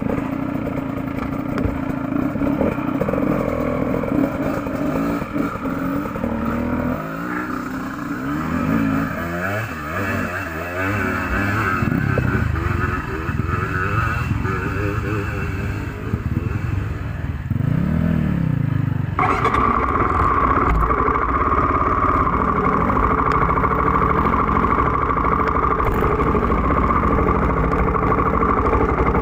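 Off-road dirt bike engines idling and revving, the revs rising and falling. About two-thirds of the way in, a nearby bike's engine switches suddenly to a louder, steady run as the bike moves off along the trail.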